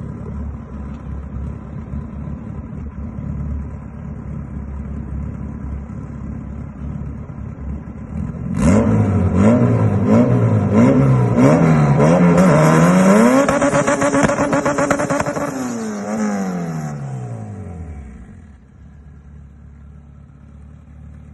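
Honda Civic EK's turbocharged B18C four-cylinder engine running low and steady, then about eight seconds in accelerating hard, its pitch climbing and dropping several times through quick upshifts. It then falls steadily in pitch as the car slows, and settles quieter near the end.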